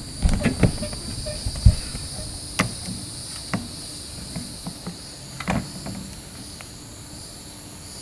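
Steady high-pitched insect chorus, with scattered knocks and clunks from someone working on the RV roof, loudest about two seconds in and again near the middle.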